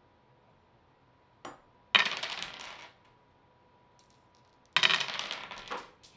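Dice dropped into a wooden dice tower, clattering down through it and out, twice. Each roll is a sharp rattle lasting about a second that trails off into a few scattered clicks.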